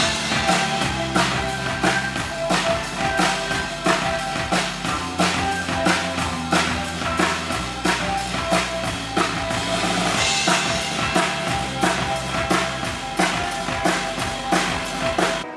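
A band playing live: a steady drum-kit beat with a bass guitar line and keyboard parts over it.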